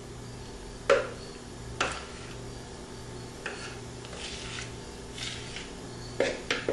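Cake pan knocking against a countertop as it is handled: a sharp clatter about a second in, another a little later, and two more close together near the end.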